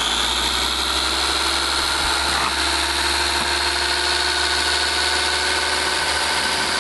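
Hamilton Beach Bebe baby food maker's electric motor spinning its slicing blade. It comes up to speed at the start, then runs steadily with a high whine.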